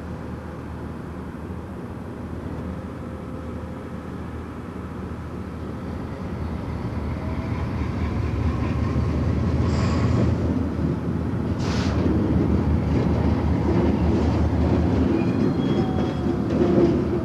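Alco Century diesel locomotive, with its Alco 251 engine, running as it approaches and passes, the rumble growing louder partway through. A sharp clank about two-thirds of the way in, then the rolling of a boxcar going by close with a faint wheel squeal near the end.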